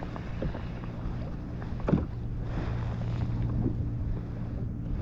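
Wind buffeting the microphone over water lapping at a kayak's hull, with a few light knocks. The sharpest knock comes about two seconds in.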